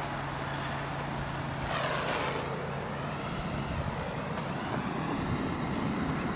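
A vehicle passing in the background: a steady rush of noise that swells about two seconds in and slowly shifts in pitch as it goes by.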